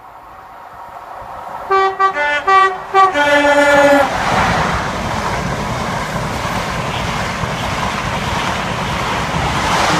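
A train approaching and sounding its two-tone horn: a quick run of short blasts alternating between a higher and a lower note, ending in a longer low note. It then passes close by at speed, with a loud, steady rumble and rail noise.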